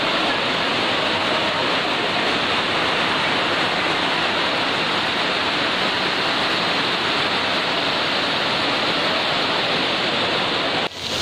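Heavy rain falling in a steady downpour, a dense even hiss. It drops out for a moment near the end.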